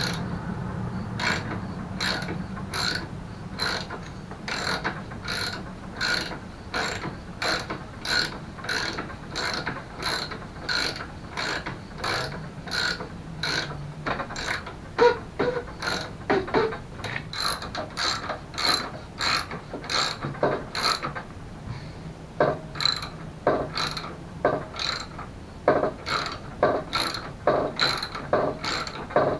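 Hand ratchet wrench clicking in a steady rhythm of about one or two clicks a second, with a couple of short pauses, as bolts are worked during reassembly of a mobility scooter's rear hinge.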